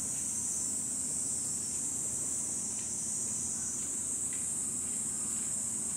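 Steady, high-pitched buzzing of a summer insect chorus that goes on without a break.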